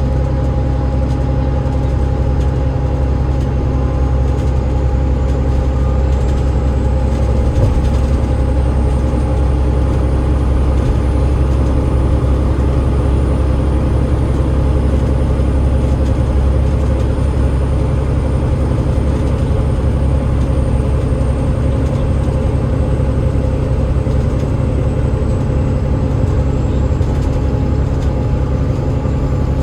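Double-decker bus powered by a Cummins ISL8.9 six-cylinder diesel with a ZF EcoLife automatic gearbox, running steadily: a deep, even rumble with a couple of steady mid-pitched tones, and a faint high whine that slowly rises and then falls away.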